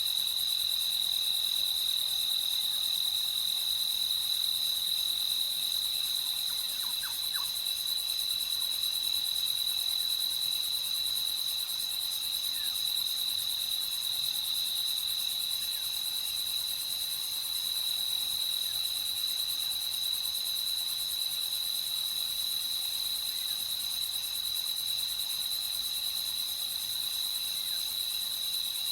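Night chorus of crickets trilling steadily at a high pitch, unbroken throughout.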